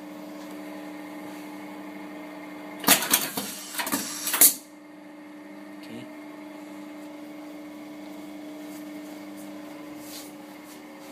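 KMS 666 air-powered button setting machine cycling once about three seconds in: a cluster of loud, sharp clacks over about a second and a half as it fixes a metal button onto denim, over a steady hum.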